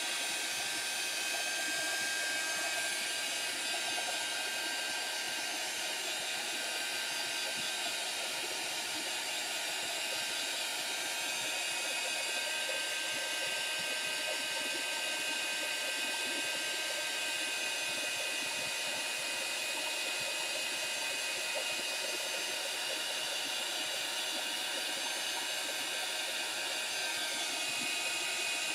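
Handheld craft heat tool blowing steadily, its fan giving an even whirring hiss as it dries wet watercolor paint on paper.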